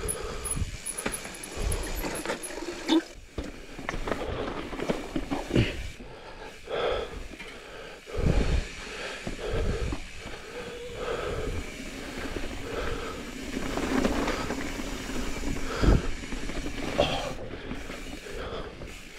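A mountain bike riding over rough rock, its tyres rolling and the bike rattling, with irregular sharp knocks and thumps as the wheels hit and drop off rock ledges.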